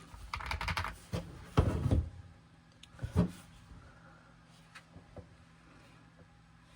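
A keyboard being handled: rustling and knocking in the first two seconds, a single solid knock a little after three seconds in, then a few faint clicks.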